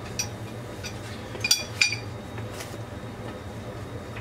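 Metal plumbing fittings clinking as they are handled on a water heater's copper pipe while a SharkBite push-fit valve is worked into place: a small click at the start, then two sharp clinks with a brief ring about a second and a half in. A low steady hum runs underneath.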